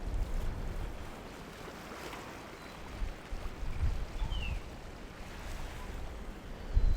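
Wind buffeting the microphone in uneven low gusts over a faint outdoor hiss, with one short high chirp about four seconds in.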